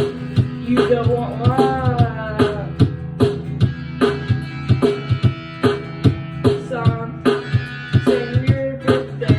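Music: a song with a steady drum beat over held bass notes, with plucked strings and a gliding melody line.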